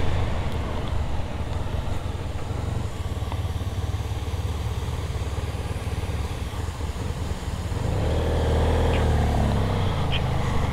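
Motorcycles riding at low speed with a steady low engine hum and road and wind noise. An engine note swells briefly near the end.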